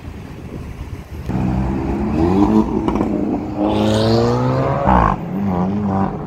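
Dodge Charger 392's 6.4-litre HEMI V8 accelerating hard from about a second in. The engine note climbs, dips at a gear change and climbs again through the next gear. A short loud burst near the end is followed by a steady lower drone.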